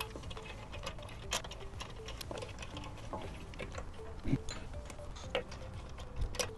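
Lug nuts being unscrewed from a Tesla wheel: scattered light metallic clicks and ticks, with a few sharper clicks.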